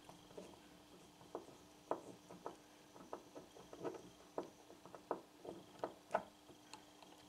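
Phillips screwdriver driving a small screw into a new plastic timing-chain tensioner guide pad. The screw cuts its own thread as it goes in, giving a faint, irregular run of creaks and clicks, about two a second.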